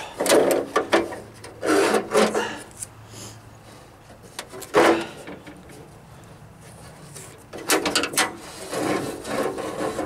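Metal door latch scraping and rubbing against the steel door shell as it is worked out of the cutout in a Jeep Wrangler YJ half door, in several short bursts with pauses between.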